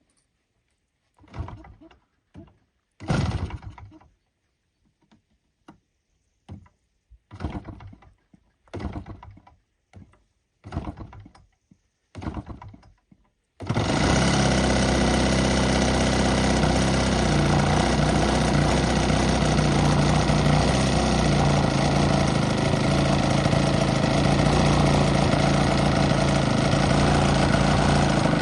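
A string of short, separate bursts of sound, then about halfway through the model plane's 3W157 two-stroke petrol engine starts and runs steadily.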